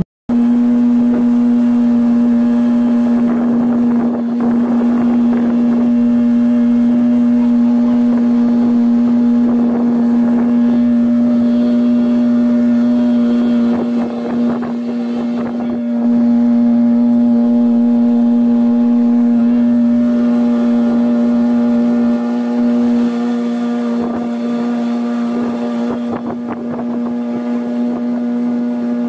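Motorboat engine running steadily at cruising speed, a constant drone with rushes of water and wind noise over it.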